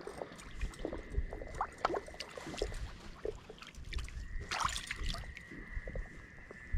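Lake water sloshing and trickling around a wading angler, with scattered small splashes and clicks and one louder splash about four and a half seconds in.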